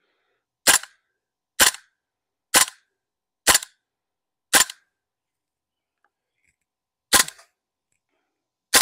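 KJ Works M4 Carbine green gas blowback airsoft rifle firing single shots on semi-automatic, each a sharp crack. There are five shots about a second apart, then after a pause two more.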